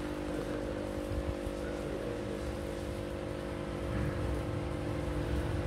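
Steady hum of small electric motors running, made up of several unchanging tones over a low rumble.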